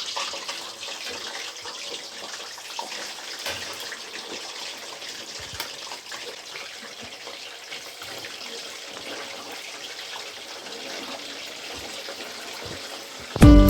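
Whole tilapia deep frying in hot oil in a pan: a steady sizzling hiss with scattered small crackles and pops.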